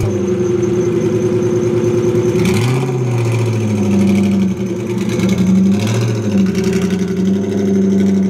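Ford GT's supercharged 5.4-litre V8 idling loudly just after start-up, with a few short throttle blips that raise and drop its pitch, the first about two and a half seconds in and more between four and six seconds.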